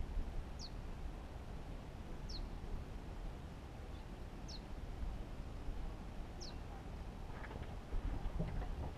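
A bird repeats a single short, high note that falls in pitch, about once every two seconds, over a steady low rumble.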